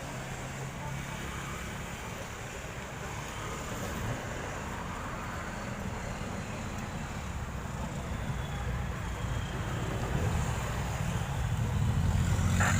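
Low engine rumble of a motor vehicle, steady and slowly growing louder as it comes closer.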